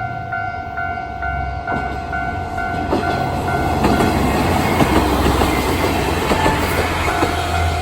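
Japanese electronic level-crossing alarm bells ringing in a fast repeating beep while a train runs over the crossing, its wheels clacking over the rail joints. The train noise swells from about two seconds in and drowns the bells until they come through again near the end.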